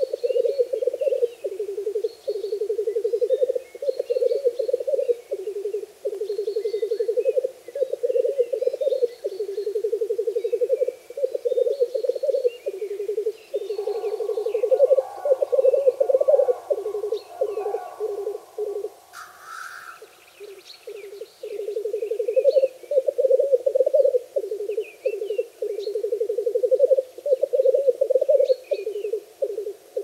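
Male black grouse's lekking song: a low, bubbling coo made of rapid pulses in long phrases, broken by short pauses. A second bubbling layer joins for several seconds past the middle, a short hiss comes about two-thirds of the way in, and faint higher chirps run above the cooing.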